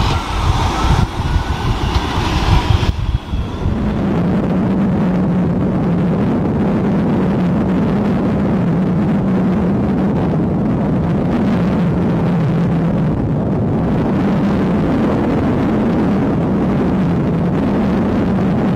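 Heavy diesel truck engine: an uneven, changing rumble for the first few seconds, then from about three and a half seconds in a steady, unchanging engine drone with a low hum.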